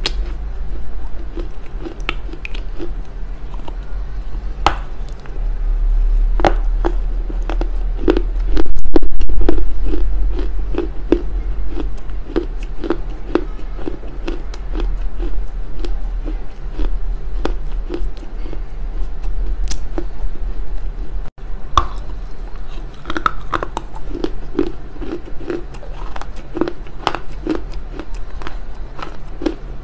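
Close chewing and crunching of smoked loess clay, picked up by a clip-on microphone: a steady run of chews at about three a second with sharp gritty crackles. A loud low rumble lasts about a second, about nine seconds in.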